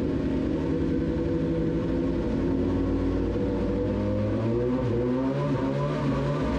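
A Suzuki GSX-S1000's inline-four engine running in place and revved with the throttle, its pitch climbing from about four seconds in.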